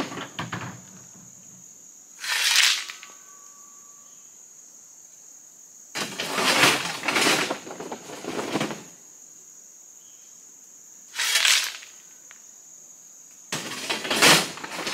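Rocks clattering in four bursts as they are unloaded from a pickup truck's bed, the second and last bursts longer and fuller than the short, sharper ones between. A steady high-pitched insect drone runs underneath.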